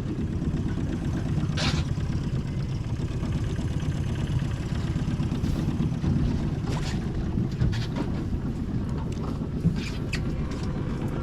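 Boat engine running steadily, a low rumble with wind on the microphone and a few brief sharp sounds.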